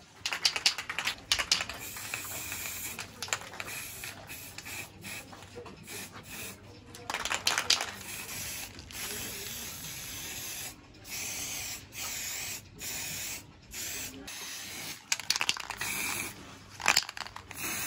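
Aerosol spray-paint can hissing in a run of bursts, each a second or two long, with short breaks between them.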